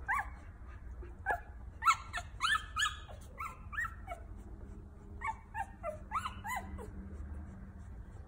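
Newborn red-nose pit bull puppies squealing and whimpering while nursing: short, high cries that each drop in pitch, a quick run of them in the first half and another bunch a little past the middle.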